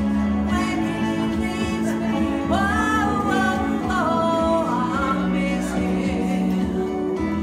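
A woman singing over music, holding a couple of long notes near the middle.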